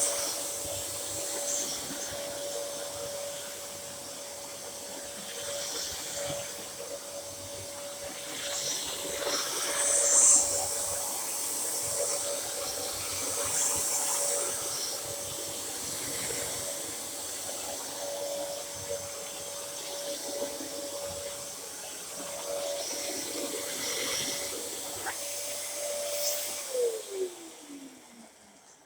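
Dyson DC07 bagless upright vacuum cleaner running with a steady whine and rushing airflow, surging now and then as it is pushed about. It is switched off about 26 seconds in, and the motor winds down with a falling whine.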